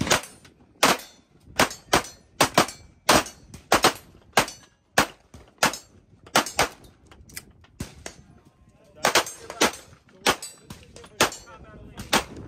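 Laugo Arms Alien 9mm pistol fired in a string of about twenty sharp shots, roughly half a second to a second apart, some in quick pairs.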